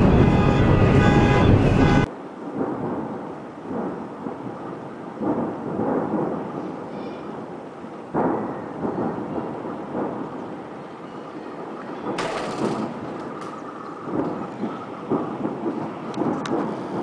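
Music briefly, then the deep rolling rumble of an exploding munitions depot, swelling and fading with a string of sudden blasts. A sharp one comes about eight seconds in, a louder, harsher one about twelve seconds in, and a run of crackling pops near the end.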